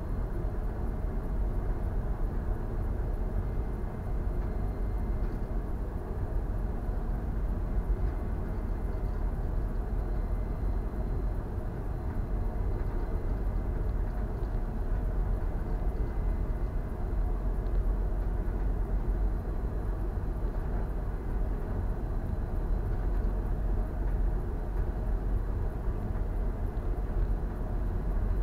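Steady low rumble and rushing noise of a bulk carrier under way, with a faint steady high whine over it.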